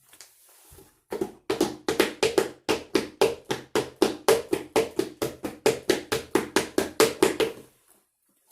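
Marching footsteps standing for Roman soldiers on the move: even stamping strikes, about four a second, starting about a second in and stopping near the end.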